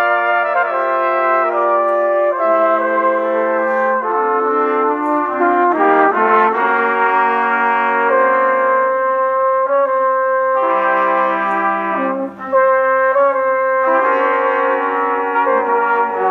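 Trumpet ensemble with flugelhorns playing sustained chords together, the harmony shifting every second or two.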